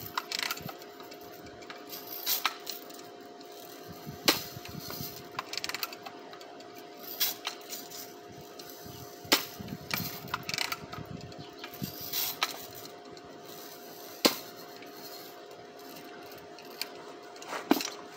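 Daisy Red Ryder lever-action BB gun being worked: sharp clacks of the lever and action every two to three seconds, some much louder than others, over a steady low hum.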